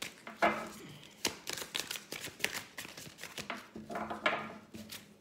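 Oracle cards being shuffled and handled by hand: a run of quick, irregular papery clicks and flicks of card stock.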